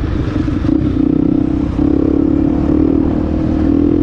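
Honda XR250 Tornado's single-cylinder four-stroke engine running under way through an aftermarket Protork 2 exhaust. The exhaust note is steady and breaks off briefly about a second and a half in before picking up again.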